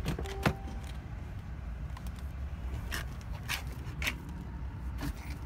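Low rumble of handheld wind and handling noise, with a brief beep and a sharp click about half a second in. A few more clicks and knocks follow around three to four seconds in as a car door is opened and someone climbs into the driver's seat.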